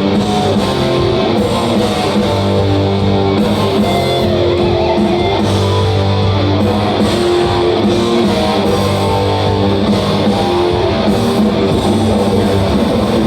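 Live heavy metal band playing loud, with distorted electric guitars and bass over drums.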